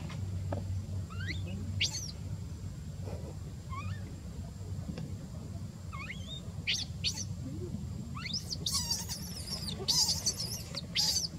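Newborn macaque squeaking and squealing in short, high, rising-and-falling cries while an adult handles it. The cries come scattered at first and grow louder and more frequent near the end, over a steady low rumble.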